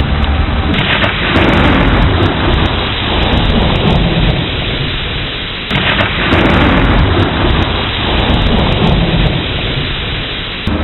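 Thunderstorm: steady heavy rain with thunder rumbling low underneath. Two sudden louder swells of thunder and rain come about a second in and again about halfway through, each fading away over several seconds.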